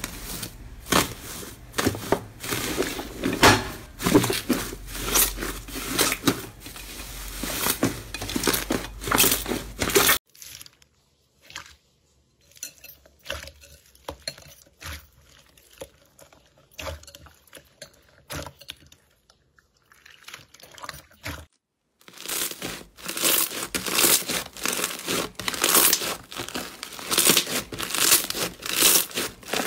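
Aluminium foil crinkling and crackling as hands press and squeeze it over yellow slime. About ten seconds in it gives way to faint, sparse sounds of hands working clear pink slime full of foam beads, and after a further ten or so seconds to loud, dense crackling as blue bead-filled slime is kneaded.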